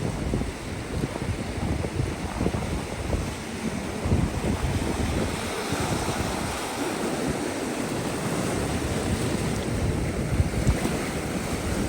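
Ocean surf washing up on a beach, with wind buffeting the microphone in irregular low gusts.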